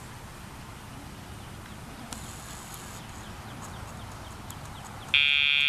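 Quiet outdoor background with a few faint clicks, then about five seconds in a loud, steady electronic beep starts abruptly.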